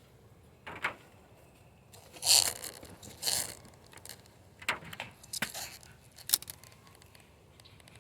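Wooden beehive parts being pried apart and handled as the feeder box and cover come off the hive: a run of short scrapes and cracks, about six in all, the loudest a little over two seconds in.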